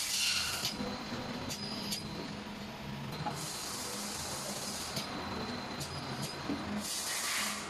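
Automatic cylindrical screen printing machine with pneumatic drive cycling: compressed air hisses out in three bursts, the middle one nearly two seconds long, with sharp clicks from the mechanism between them over a low hum.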